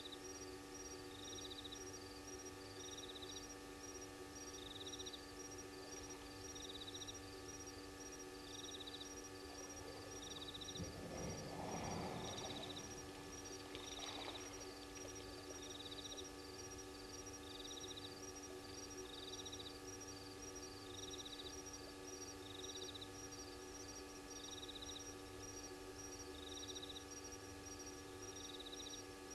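Night insects calling: a high chirp repeats about every two seconds over a faster high ticking, with a steady hum underneath. About eleven seconds in there is a louder rustle lasting a couple of seconds, and a shorter one near fourteen seconds.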